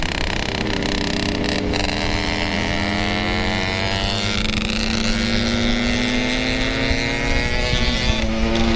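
Yamaha RX-King two-stroke single-cylinder motorcycle engine running under way, its note rising slowly as it pulls, then dipping briefly near the end.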